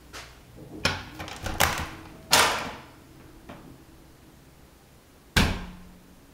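Panelled wooden door being opened by hand: a run of latch and knob clicks, a louder knock about two and a half seconds in, and another sharp knock near the end.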